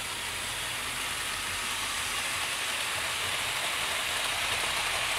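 OO gauge model trains running on the track: a steady rushing of wheels and motors that grows slightly louder as a train of wagons passes close by.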